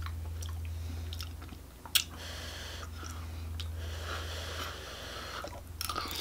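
People chewing forkfuls of spaghetti squash, soft wet mouth sounds, with one sharp click about two seconds in, over a steady low hum.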